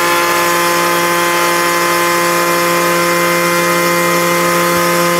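CNC milling machine spindle running at a steady pitch as a diamond burr bit slowly cuts a 3 mm glass sheet in a water tray, a constant whine of many tones. The cut is vibrating heavily.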